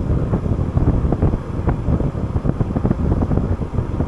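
Rumbling, buffeting rush of air on the microphone, with irregular gusts and no clear tone.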